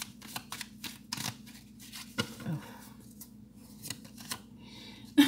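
A deck of tarot cards shuffled by hand: a quick run of papery flicks and snaps, sparser in the second half, with one sharper snap near the end.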